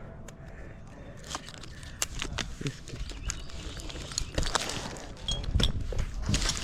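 Irregular clicks, knocks and scrapes of a tree climber's gear and movement against the trunk, with low rumbling noise on the microphone that grows heavier about two-thirds of the way through.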